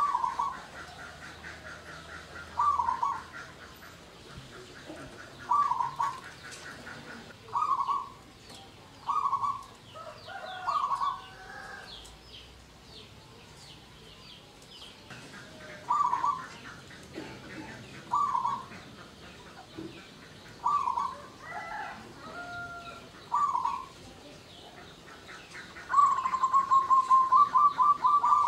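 Zebra dove (perkutut) cooing: short mellow coo notes every two to three seconds, some with gliding phrases. Near the end comes a fast run of about a dozen staccato coos, the bird's full song.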